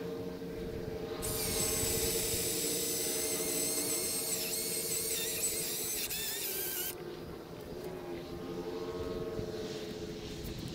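Milwaukee M18 Fuel battery chainsaw running at a distance: a steady motor whine that shifts in pitch. From about one to seven seconds in it turns louder and high-pitched as the chain bites into wood.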